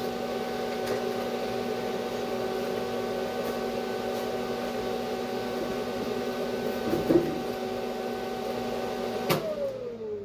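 An electric welding machine's cooling fan running with a steady whir and hum. Near the end it is switched off with a click and winds down in falling pitch. There is a light knock about seven seconds in.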